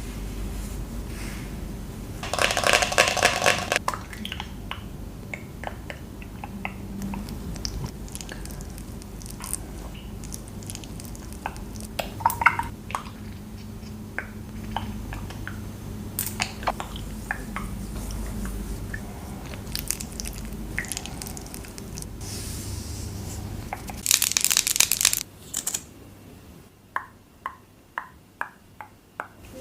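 Close-up ASMR handling of skincare products and their packaging: scattered taps and clicks, two short bursts of crinkling about two seconds in and again late on, and a run of evenly spaced clicks near the end.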